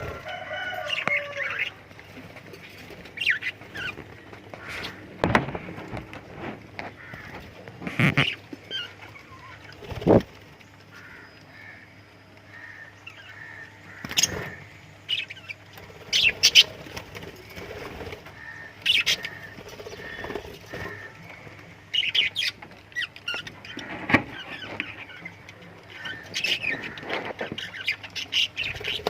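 Pet love birds chirping and squawking in short, sharp calls scattered irregularly, over a faint steady low hum.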